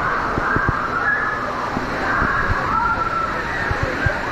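Water park crowd: sloshing, splashing water under a steady wash of distant voices and shouts.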